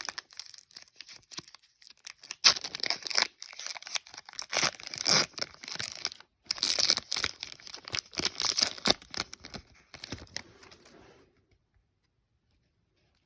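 Foil trading-card pack being torn open and crinkled by hand: irregular tearing and crackling that stops a couple of seconds before the end.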